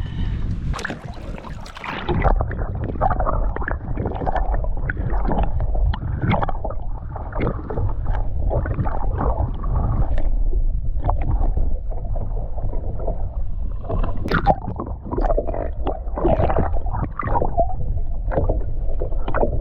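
Water splashing and slapping around a small fishing boat, with scattered knocks and clatter over a steady low rumble.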